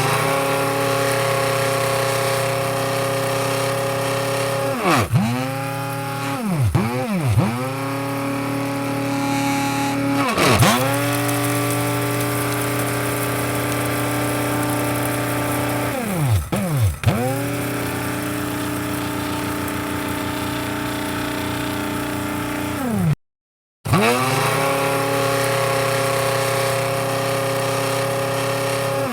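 Electric coffee grinder motor running at a steady high speed. Several times its pitch dips sharply and climbs back up as the motor slows and spins up again, and about 23 seconds in it cuts out for under a second before starting again.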